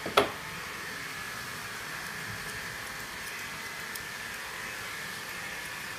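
Steady hiss with a faint high whine from a running machine, with one sharp click just after the start.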